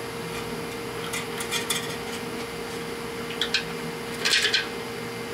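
Light metallic clinks and scrapes of a bolt on a wire leader knocking against the inside of a steel truck frame as the wire is pulled toward the hole: a few scattered taps, with the loudest cluster near the end. A faint steady hum runs underneath.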